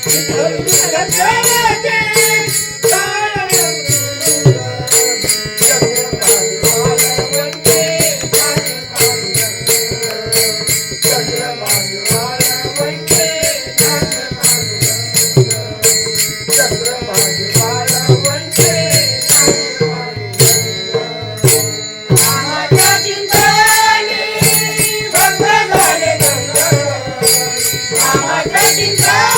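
A voice singing a melody over fast, steady rhythmic percussion with jingling, rattling accompaniment.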